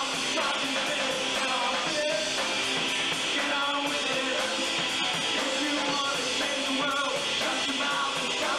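Live rock band playing: electric guitars and drums with a lead singer, a dense, continuous mix.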